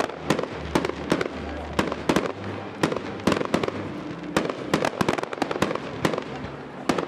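Aerial fireworks shells bursting, sharp bangs following one another at a few per second in an irregular rhythm.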